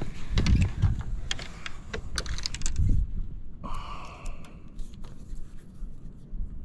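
Handling noise of fishing tackle: a run of small clicks, taps and knocks as a spinning rod and reel are picked up and the line and lure are handled, with low rumble. A brief whir about halfway through, then scattered light ticks.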